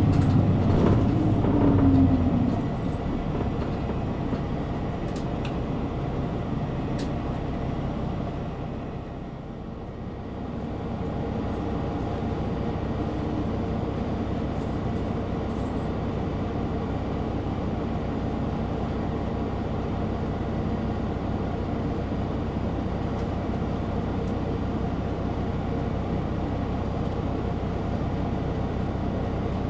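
Route bus's diesel engine and road noise heard from inside the cabin while driving. The first couple of seconds are louder, with the engine note sliding as it eases off; the level dips briefly about ten seconds in, then it runs steadily.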